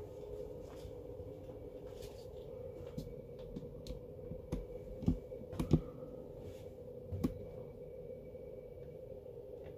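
Scattered light clicks and knocks, a few louder ones around the middle, over a steady faint hum.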